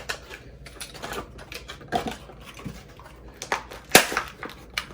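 Irregular small clicks and clacks of a new door knob's metal parts and packaging being handled, with a sharper knock about four seconds in.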